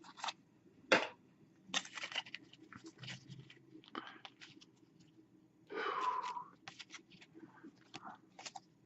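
Trading cards being handled and flipped through by hand: soft scattered clicks, snaps and rustles of card stock, with one longer, louder scrape about six seconds in.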